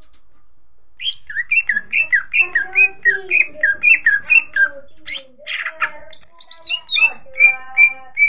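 Greater green leafbird (cucak ijo) singing loudly in full song. It opens with a fast run of repeated down-slurred whistles, about three a second, then gives harsh rasping notes halfway through. It ends with a falling run of high notes and three clear whistles.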